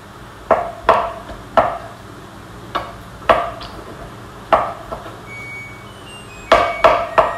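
Kitchen knife chopping soft canned tomatoes on a cutting board: sharp, irregular knocks of the blade on the board, a few single strokes at first, then a quick run of several near the end.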